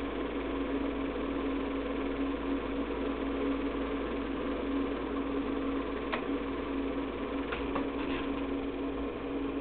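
Keystone Dual K-539 8mm projector running: a steady mechanical whirr with a steady hum. A few light clicks come about six seconds in and again around eight seconds in.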